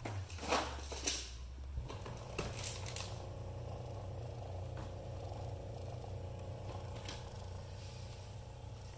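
GM Buick 8-track car player running with a cartridge loaded: a steady hum of several fixed tones, after a few clicks and knocks in the first couple of seconds.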